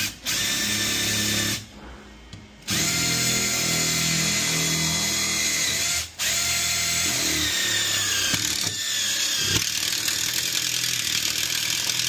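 Small cordless drill running as it bores out through the back of a socket back box into the wall. It runs in a short burst, stops for about a second, then runs steadily for most of the rest, with a brief break about six seconds in. Its pitch sags a little later on as it takes the load.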